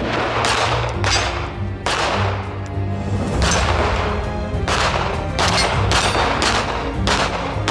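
Mossberg MC2C 9mm pistol firing a string of shots, about one a second at first and quicker near the end, over background music.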